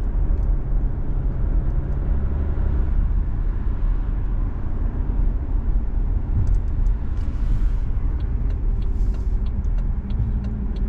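Car being driven, with a steady low rumble of engine and tyres on the road. In the second half come a scatter of faint clicks and two brief hisses.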